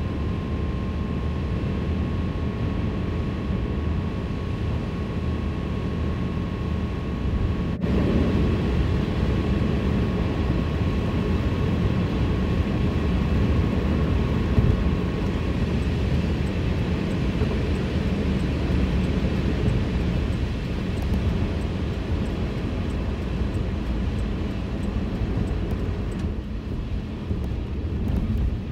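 Car cabin road noise: a steady low rumble of tyres and engine while driving on wet pavement, with a brief dropout about eight seconds in, after which it is slightly louder.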